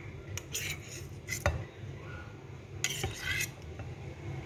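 Metal knife scraping and clinking against a ceramic bowl as cubes of set jelly are pushed off it, in a few short scrapes and taps, the sharpest about a second and a half in.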